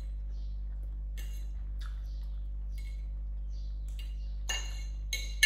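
Cutlery clinking lightly against a dish while eating noodles: faint scattered taps, then a sharper ringing clink about five seconds in. A steady low electrical hum runs underneath.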